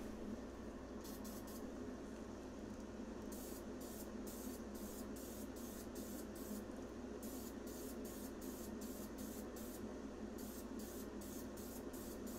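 Aerosol can of Bulldog adhesion promoter sprayed in short hissing bursts, about two a second, laying a light coat on a plastic pistol grip. Underneath runs the steady hum of the paint booth's extraction fan.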